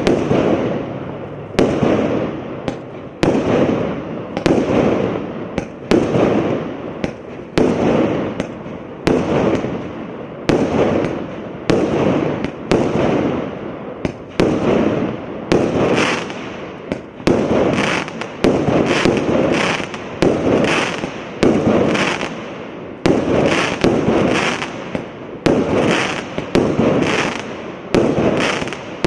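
Absolute Fireworks 'High Impact' firework cake firing a steady barrage of single shots, a little more than one a second. Each shot is a sharp bang with a fading tail.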